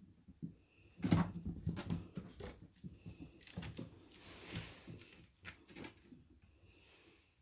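Kittens scampering and pouncing on a hollow plastic platform: a run of soft thumps and knocks about a second in, then a scratchy scrabbling and scattered light taps.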